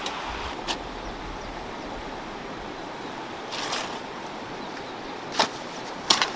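Garden hoes chopping and scraping into damp soil: a few sharp strikes, with two in quick succession near the end, over the steady rush of a river.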